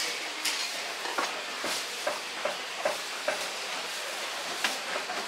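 Butcher's stall work at a wooden chopping block: irregular sharp knocks and clicks, about eight of them, over a steady background hiss of the market.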